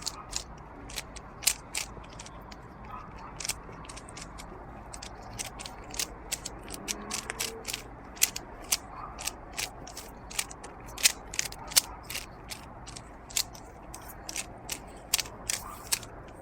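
Rubik's Cube being scrambled by hand: its plastic layers turning with sharp, irregular clicks, a few a second.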